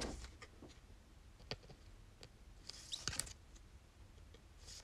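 Faint handling of trading cards: scattered small clicks and ticks, with a brief soft rustle about three seconds in and another near the end.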